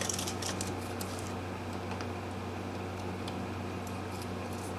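A small smoke-extraction fan running with a steady hum, under light clicks and scrapes of a soldering pen working a pickup lead wire loose from a pot lug. The clicks come in a quick cluster at the start, then a few single ticks later.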